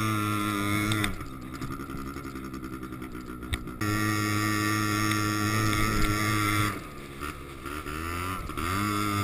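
Quad bike engine running under load while towing, easing off twice, about a second in and again near seven seconds: the note drops and wavers, then climbs back up.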